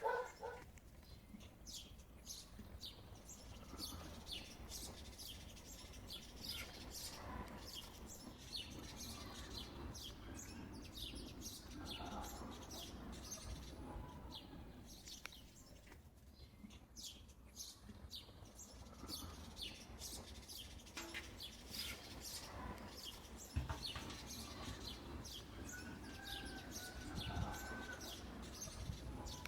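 Birds chirping faintly, with many quick high chirps and a few lower calls now and then.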